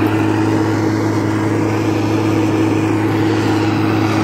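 Small petrol-engine blower machine running steadily with a constant hum, powering the petrol-and-air torch that preheats the rail ends for a thermite weld.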